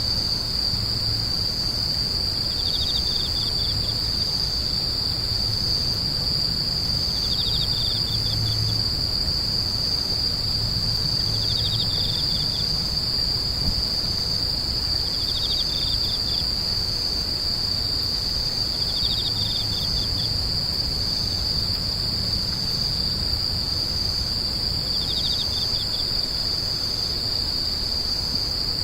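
Grass insects calling: one high-pitched insect drone runs without a break, and a second insect's short pulsed trill, slightly lower in pitch, repeats about every four seconds.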